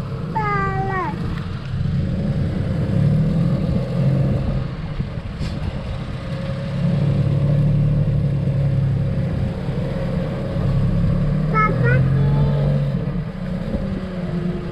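Glass-bottom boat's engine running with a steady low hum that swells and eases. Brief voices call out just after the start and again about twelve seconds in.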